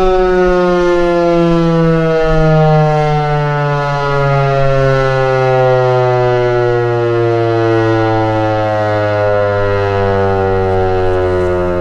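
Federal Signal 508 dual-tone outdoor warning siren winding down after its alert signal, its chord of tones falling slowly and steadily in pitch as the rotor coasts down.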